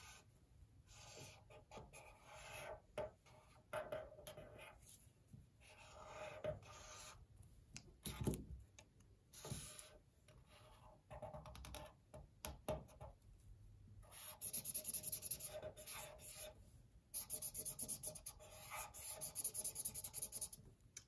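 Felt-tip marker drawing on cardboard in short scratchy strokes as an outline is traced, turning into longer runs of rapid strokes in the last third.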